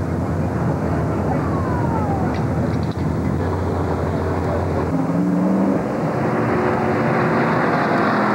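V8 stock-car engines running at speed on the track, the engine pitch falling as a car goes past in the first seconds. About five seconds in, a nearer car's engine note comes in, steady and stronger.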